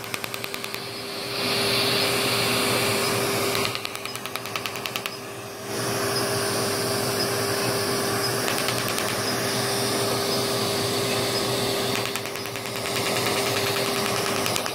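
Er:YAG ablative laser working over facial skin. A steady machine hum runs throughout under a loud hiss, and the hiss drops out twice, leaving rapid regular ticking from the laser's pulses.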